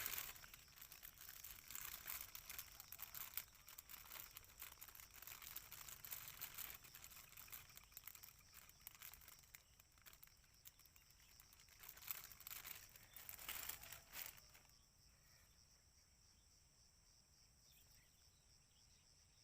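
Irregular rustling and crinkling handling noise close to the microphone, which stops about fourteen seconds in and leaves only a faint steady high hiss.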